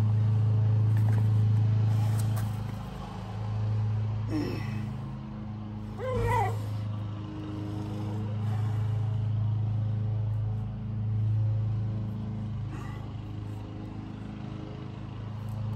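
A steady low mechanical hum, like a motor or engine running, swelling and fading slowly. Short rising-and-falling cries break in about four and six seconds in.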